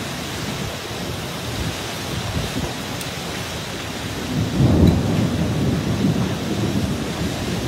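Violent storm downburst winds driving heavy rain, the gusts buffeting the microphone with a low rumble. A stronger gust surges about four and a half seconds in.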